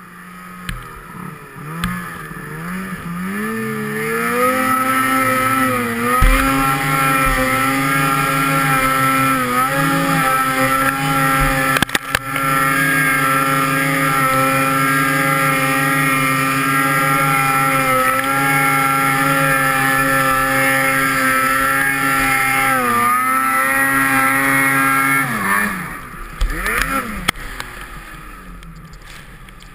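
Ski-Doo Summit 800 two-stroke snowmobile engine pulling hard up a steep powder chute. Its revs climb over the first few seconds and then hold high and steady with a few brief dips. About twenty-five seconds in the revs drop away and the engine runs lower and unevenly, off the throttle.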